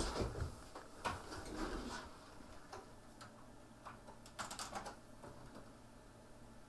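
Computer keyboard keys being pressed: scattered single clicks, with a quick run of several about four and a half seconds in.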